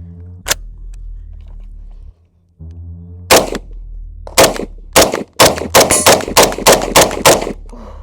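Semi-automatic IWI Tavor 7 rifle in 7.62 NATO (.308) firing: a single shot, then after a pause about eleven more in quickening succession. A steady low hum runs underneath.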